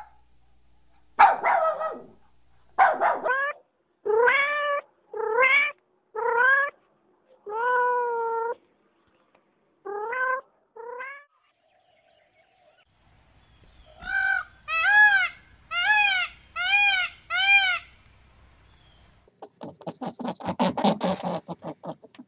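A domestic cat meowing repeatedly, with about nine separate meows that bend in pitch over the first ten seconds or so. After a pause come five quick, higher-pitched mews at an even pace. Near the end a fast, scratchy pulsing sound starts.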